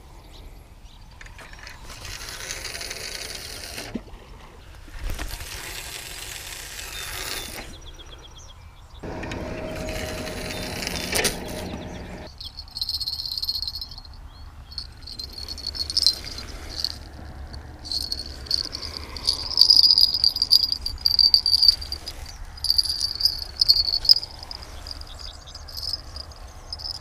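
Insects chirping steadily in a high, wavering chorus through the second half, over short clicks and knocks of tackle being handled close by. In the first half, three rustling bursts of noise of a few seconds each.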